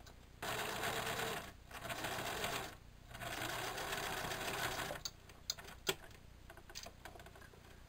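Electric sewing machine stitching a seam through thick terry towelling in three runs, about a second, a second and two seconds long, with short pauses between. It stops about five seconds in, and a few light clicks follow.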